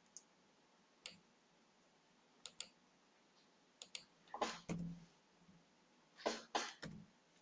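Scattered clicks of a computer keyboard and mouse during text editing: single clicks in the first few seconds, then short clusters of keystrokes about four and a half and six and a half seconds in.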